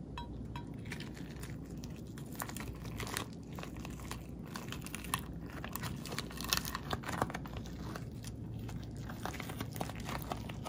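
Rapid small crackles and sticky clicks as hands roll wet rice paper tightly around fillings that include crisp fried egg rolls.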